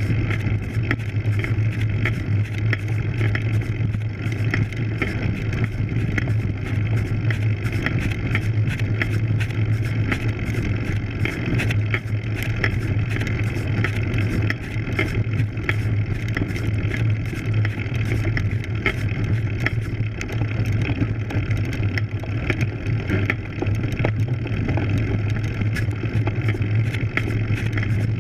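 Road bike climbing a steep dirt road, heard from a frame-mounted camera: a steady low rumble of tyres and frame vibration over the dirt, with frequent small clicks and rattles.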